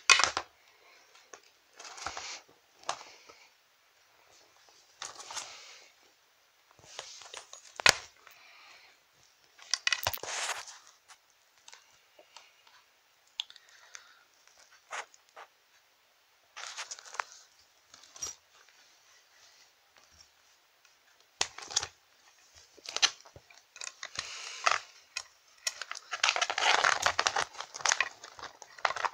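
Rustling and crinkling of dolls and plush toys being handled and moved about, with scattered sharp clicks and knocks as they touch the toy furniture, and a longer, louder stretch of rustling near the end.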